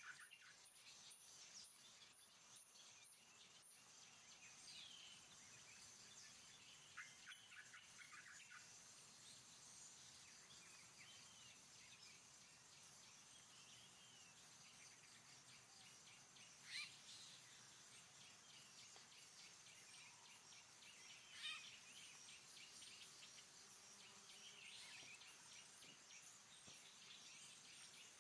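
Faint forest ambience: scattered bird chirps and short whistled calls over a steady high hiss, with two sharper calls in the second half.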